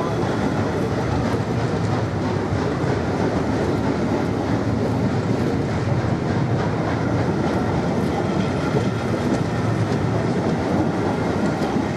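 Railway passenger coaches rolling past close by: a steady rumble of steel wheels on the rails, with a faint clickety-clack over the rail joints.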